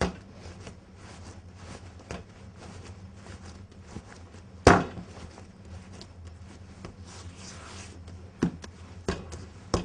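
Bread dough being worked by hand on a wooden worktop: soft pressing and rubbing, with occasional thumps as the dough is lifted and slapped down. The loudest thump comes about halfway through, and a few more come near the end.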